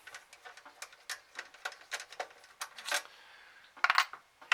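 Light, irregular clicks and taps from handling an Xbox 360 console's parts during disassembly, with a quick run of louder clicks near the end.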